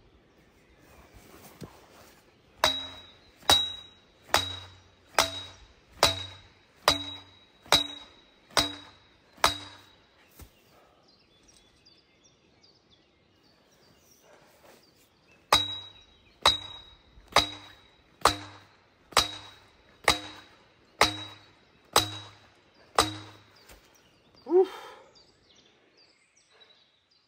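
Sledgehammer striking the top of a steel scaffold tube, driving the pole into the sandy channel bed: ringing metallic clangs a little over one a second, in two runs of about nine blows with a pause of about six seconds between.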